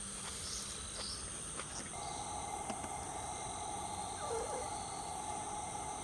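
Insects chirring steadily in a high, even drone, with a lower steady noise coming in about two seconds in and a few faint clicks.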